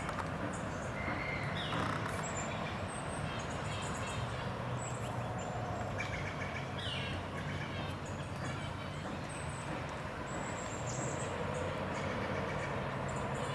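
Outdoor ambience: a steady low hum of distant traffic under small birds chirping and calling, with two louder short calls about two and seven seconds in.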